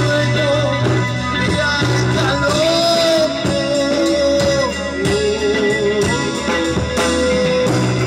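Live rock band playing loudly: electric guitars, bass guitar and drums, with a held melody line bending in pitch over the chords.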